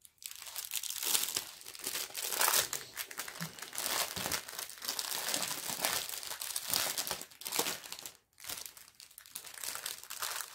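Clear plastic wrapping crinkling as it is pulled open by hand, with small plastic zip bags of diamond-painting drills being handled. The crackling is dense and irregular, with a short pause about eight seconds in.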